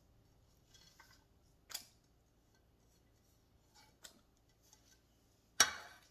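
Light clicks and taps of cooking utensils and ingredients handled over a pot as chopped garlic is added, with one sharp, ringing clink about five and a half seconds in.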